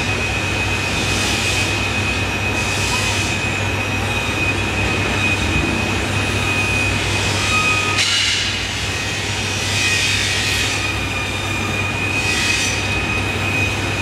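Handheld gas torch hissing steadily as its flame heats a knife blade's edge to a glowing red, with a steady low hum and a thin high whine beneath it.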